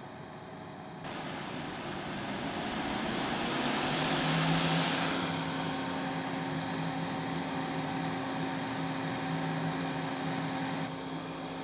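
Air purifier fan blowing steadily. About a second in it switches to a higher speed, and the rush of air grows over the next few seconds before holding steady with a low hum.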